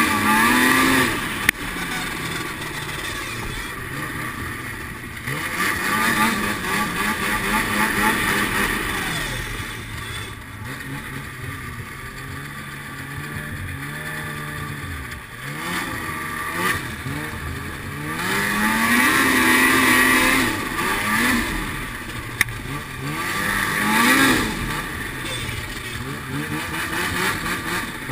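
Snowmobile engine revving up and falling back with the throttle while riding a trail, its pitch rising and falling several times. It eases down to a lower, quieter note in the middle stretch, then picks up again. Two brief sharp clicks stand out, one shortly after the start and one past the two-thirds mark.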